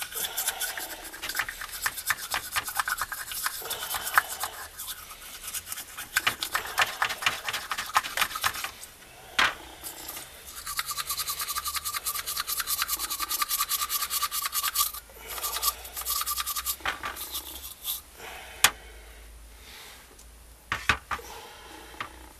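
Carbon soot being scraped off a Toyota Avensis D-4D diesel's EGR valve with a small hand tool, in rapid repeated rasping strokes. In the last few seconds the scraping stops, leaving a few light knocks.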